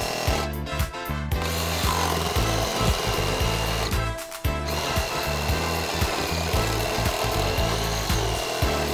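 Ryobi RRS18-0 18-volt cordless reciprocating saw running and cutting through stacked wooden blocks, its blade rasping through the wood. The cutting noise breaks off briefly twice, about half a second in and about four seconds in.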